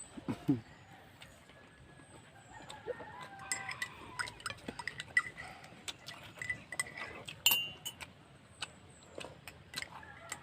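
Chickens clucking, with many short clinks and clicks of utensils on a plate.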